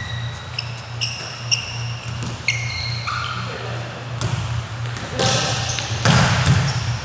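Basketball shoes squeaking on a hardwood court in many short, high chirps, with a few ball bounces in an echoing hall over a steady low hum. A louder rush of noise comes near the end.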